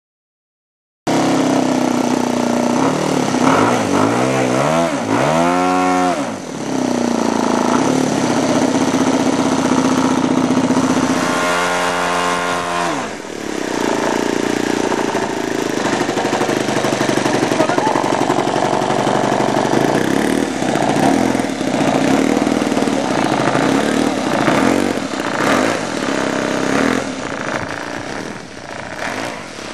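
Kyosho CAP 232 model aerobatic plane's engine running, revved up and down in quick rising and falling sweeps a few seconds in and again about twelve seconds in, otherwise running steadily.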